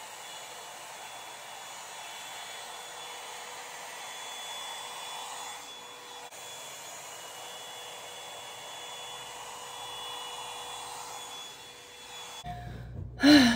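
Revlon One-Step hot-air dryer brush running steadily while drying hair: a rush of blown air with a faint steady whine. It cuts off about a second before the end.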